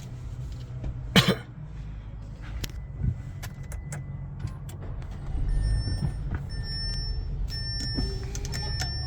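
Steady low rumble of a car engine idling. About a second in there is one loud, short burst like a cough. From about halfway, a high electronic beep repeats in short pulses.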